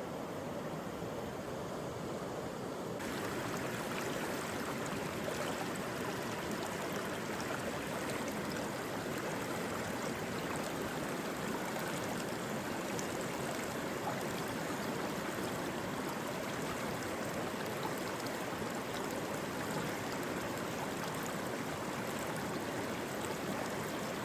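Mountain stream running over rocks, a steady wash of flowing water; about three seconds in it turns brighter and fuller.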